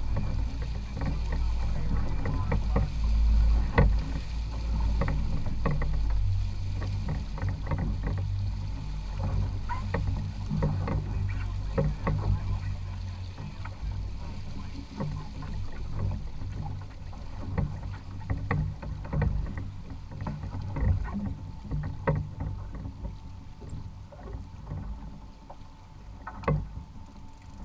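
Boat engine running with a low hum that eases off about six seconds in and keeps getting quieter as the boat slows, with frequent short knocks and clicks.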